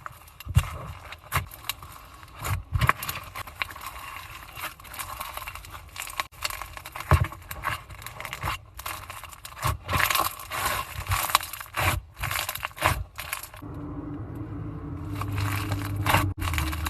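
Slime being squeezed and pressed by hand, giving irregular sticky clicks, pops and crackles. A low steady hum runs for about three seconds near the end.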